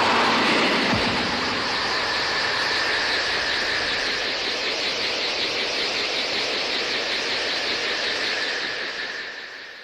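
Saint Seiya anime sound effect: a loud, sustained rushing hiss with a steady high tone running through it, fading out near the end.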